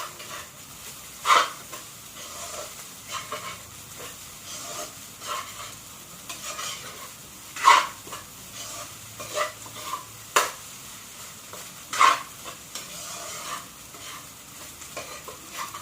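Fried rice with water spinach (kangkong) sizzling in a pan while it is stirred, the utensil scraping and clicking against the pan. Four sharp knocks stand out: one about a second in and three more in the second half.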